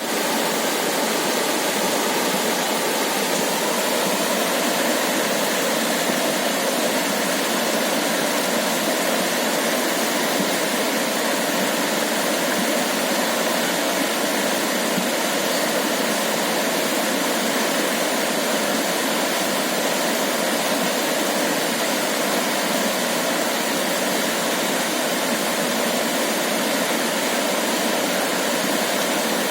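Steady rushing water noise, an even hiss with almost no bass, holding one level throughout with no swells and no separate splashes or cracks.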